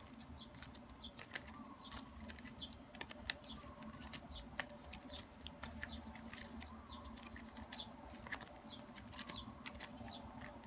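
Woven ribbon strips rustling and crackling with many small irregular clicks as they are handled and pulled tight through the weave, closing up the gaps.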